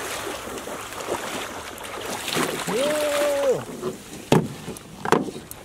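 Water splashing as a hunter in waders wades through shallow flood water. Near the middle there is a short steady pitched sound lasting just under a second. Near the end come two sharp knocks.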